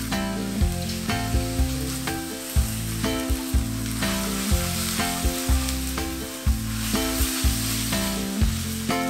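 Flat rice noodles and bean sprouts sizzling steadily in a very hot wok as the sauce hits the pan and a wooden spatula tosses them.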